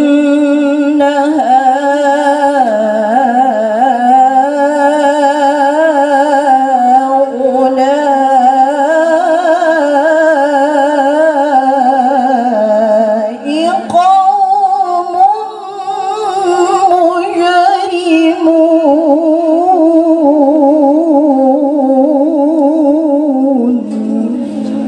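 A woman's voice reciting the Qur'an in melodic tajwid style, drawing out long, ornamented held notes with a fast wavering vibrato. It runs as two long phrases, with a brief break for breath about 13 seconds in, and trails off near the end.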